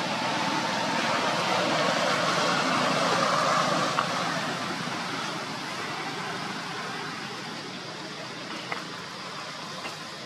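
Steady noise of a passing vehicle, swelling over the first four seconds and then slowly fading, with a few faint clicks later on.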